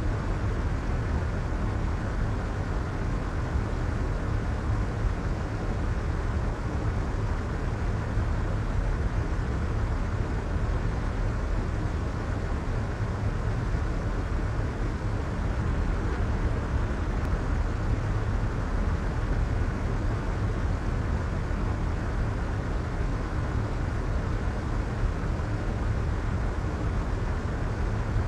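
Steady soft white noise, a constant, muffled hiss weighted toward the low end, with no change in level or texture.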